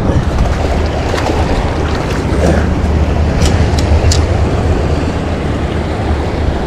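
Steady rush of flowing river water with wind rumbling on the microphone, and a few light clicks about halfway through.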